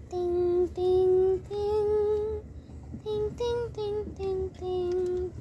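A child singing a slow tune in held notes, about eight of them, with a short break a little past halfway.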